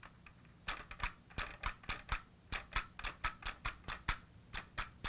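Sharp plastic clicks, about four a second and slightly uneven, from a 1983 Kenner Knight 2000 Voice Car toy as its voice mechanism is worked on a fresh battery. No voice plays: the talking mechanism is not working.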